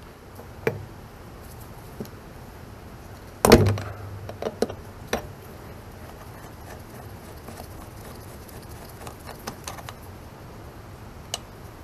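Scattered metallic clinks and knocks of steel hydraulic fittings and hoses being handled and loosened on an excavator's hydraulic tank top, with one louder knock about three and a half seconds in and a run of light ticks near the end.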